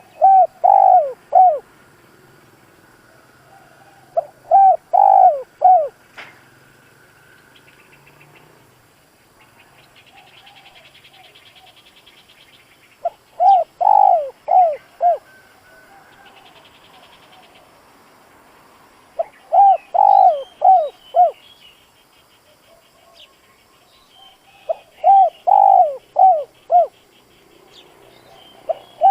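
Spotted dove cooing its song: five phrases, each a short lead note followed by three or four falling coos, repeated every four to six seconds. Faint high, fast trills sound between the phrases.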